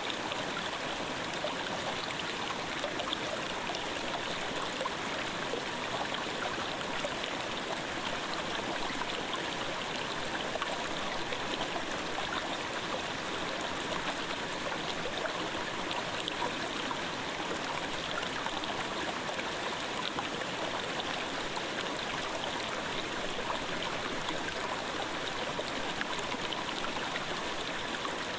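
Clear mountain stream babbling, a steady, even rush of flowing water.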